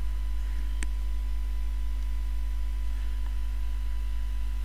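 Steady low electrical mains hum, with a single faint click about a second in.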